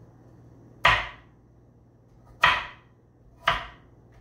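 Kitchen knife chopping through a raw carrot and knocking onto the cutting board: three separate chops at uneven intervals, each a sharp knock.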